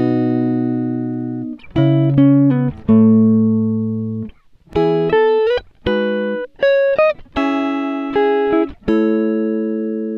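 Background music: plucked guitar notes and chords in short phrases, each ringing and fading, with a few notes sliding up in pitch.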